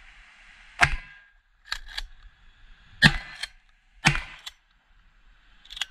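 A shotgun fired three times at close range, the shots about two seconds and then one second apart, firing slugs at cardboard targets. Softer mechanical clicks of the gun's action fall between the shots, a quick pair after the first.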